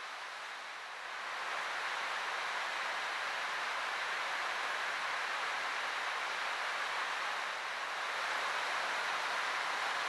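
Rain falling steadily, an even hiss that grows louder about a second in.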